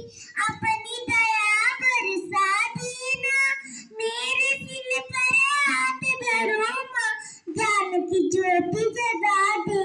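A child singing a song solo in a high voice, with a brief breath pause past the middle.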